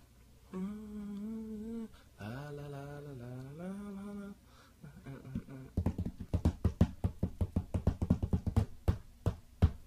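A man humming two held, wavering sung phrases into a microphone. From about six seconds in, a fast run of sharp percussive hits follows, about six a second.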